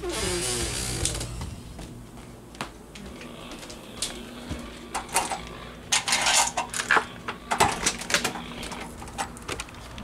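Handling and footstep noise, then a run of sharp clicks and knocks about five to eight seconds in, from a door being unlatched and opened.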